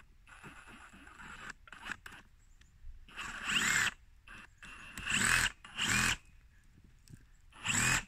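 Ridgid power drill boring into a pumpkin in short trigger bursts. The motor's whine rises and drops with each pull: one burst of about a second three seconds in, two quicker ones around five and six seconds, and another starting at the very end.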